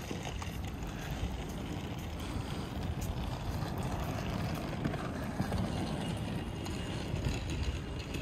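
Steady low rumble of open-air background noise, with wind buffeting the microphone as it is carried across the open space.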